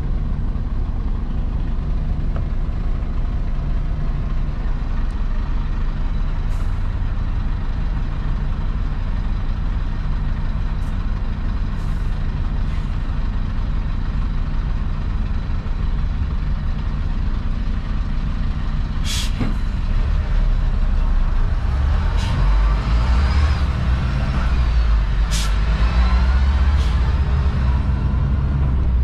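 Shacman X3000 heavy truck's engine running under way, heard from inside the cab as a steady low drone. From about 20 s in the drone grows louder. A few short, sharp hisses or clicks cut through it, the first about 19 seconds in.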